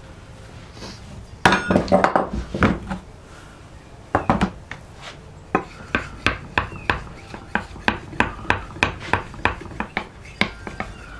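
A sharpening stone rubbed by hand along the steel bevel of a hewing hatchet: a steady run of short scraping strokes, about three a second, through the second half. About a second and a half in there is a loud burst of clattering knocks with a brief metallic ring.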